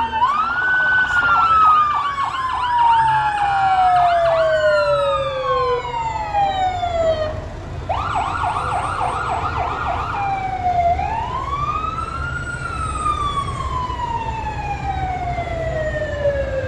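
Emergency vehicle sirens sounding together. Quick rises followed by long, slow falling sweeps, two of them overlapping, with rapid warbling yelp passages near the start and again about eight seconds in, over a low rumble.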